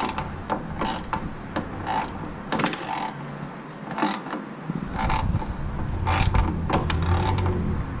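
Ratchet wrench with a 12 mm socket on a long extension, clicking in repeated strokes about once a second as it turns the alternator's adjustment bolt clockwise. Each turn pulls the alternator over to take up slack in the stretched alternator and AC belt that squeals under accessory load.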